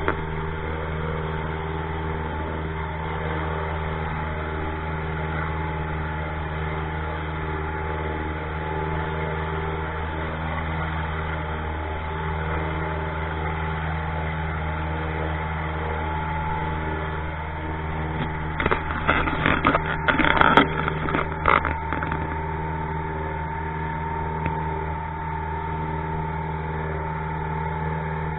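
A motorboat's engine running at a steady speed, an even drone that does not change pitch. About two-thirds of the way through there are a few seconds of louder irregular knocking and rattling.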